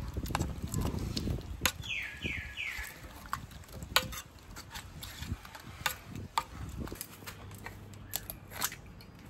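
A metal spoon and a hand mixing a thick, wet paste of pounded ginger, garlic and chili in a stainless steel pot: squelching with scattered clinks of the spoon against the pot. The mixing stops about seven seconds in, leaving only a few light clicks.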